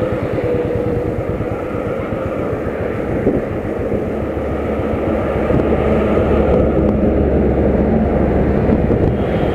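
A vehicle running at road speed, its engine pulsing low under steady road and wind noise. It grows louder about five and a half seconds in.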